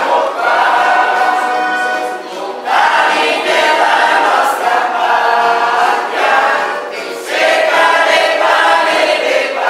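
Mixed choir of men and women singing a song in sustained phrases, with brief pauses between phrases about two and a half and seven seconds in.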